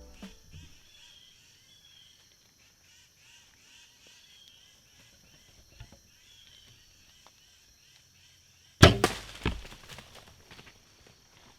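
Bow shot at a deer: a sudden loud crack of the released bowstring about nine seconds in, a second sharp sound about half a second later, then rustling. Before it, faint insects chirp in a steady rhythm.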